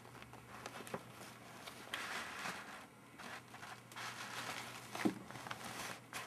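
Paper rustling and crinkling as a cat shifts about and lies down on a sheet, in short patches, with a soft knock about five seconds in.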